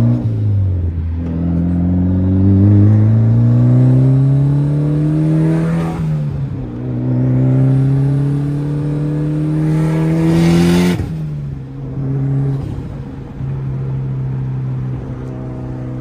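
Turbocharged 2.0-litre four-cylinder of a 420 whp Mitsubishi Lancer Evolution X with a full titanium exhaust, heard from inside the cabin as the car accelerates through the gears. The engine note climbs in pitch and drops at upshifts about six and eleven seconds in, with a brief hiss at the second shift, then runs at a steady note as the car cruises.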